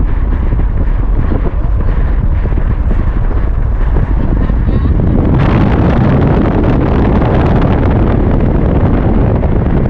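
Steady road noise of a moving car, with wind buffeting the microphone. About five seconds in it grows louder and brighter.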